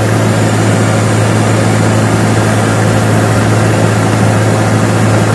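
Aircraft engines droning steadily and loudly, with a strong low hum under a wide rushing noise.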